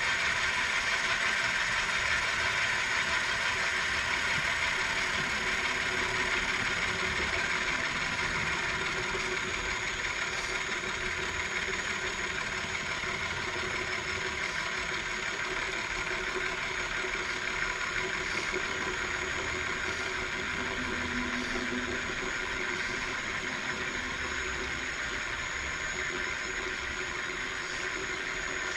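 Milling machine running with an end mill cutting the steady rest casting under power table feed: a steady, even machining sound that eases slightly as the cut goes on.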